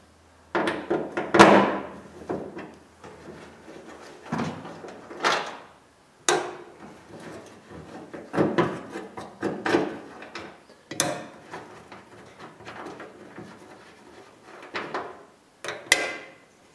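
Scattered metallic clinks and knocks as Torx screws are taken out by hand from a pickup's steel tailgate panel, a ratchet is set down on the tailgate and the screws are dropped into a magnetic parts tray. The loudest knock is about a second and a half in.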